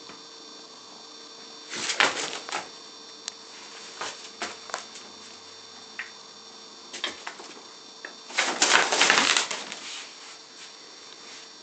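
Scattered clicks, knocks and rustling of a kitten and a large dog at play on a carpet, with a short loud rustle about two seconds in and a longer, louder rustling burst a little after eight seconds.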